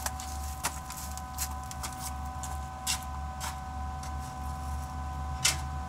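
Scattered light clicks and knocks of tools and parts being handled, over a steady low hum with a faint, even whine.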